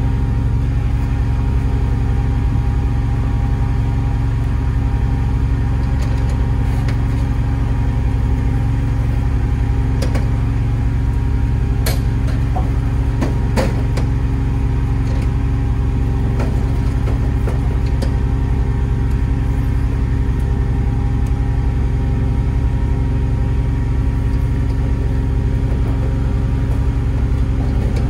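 Kohler 20 kW air-cooled natural-gas standby generator running steadily, muffled by its own sound enclosure and an added noise-reduction box with the lids shut: a low, even engine hum. A few light clicks about halfway through.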